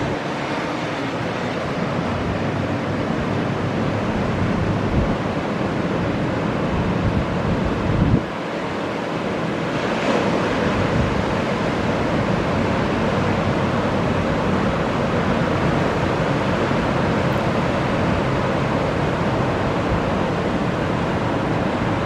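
Ocean surf breaking in a continuous wash, with wind buffeting the microphone in low rumbles, strongest just before eight seconds in.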